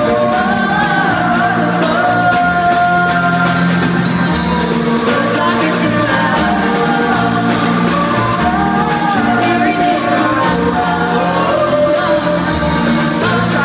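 Live band playing a song through a PA, a lead voice singing a melody over bass and other instruments.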